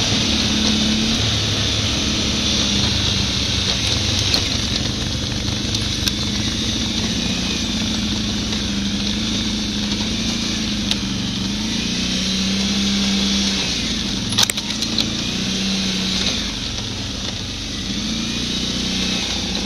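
Quad (ATV) engine running while riding, its pitch rising and falling with the throttle. A couple of sharp knocks come about three-quarters of the way through.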